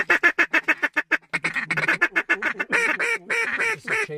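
Wooden duck call blown by hand: a fast run of short notes for about a second, then a string of longer, louder quacks.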